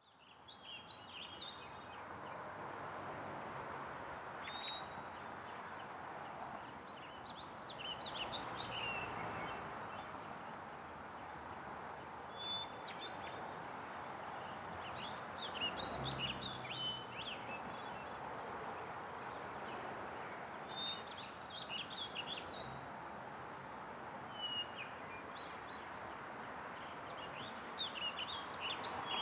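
Outdoor ambience: many small birds chirping and calling over a steady background hiss, fading in from silence at the start.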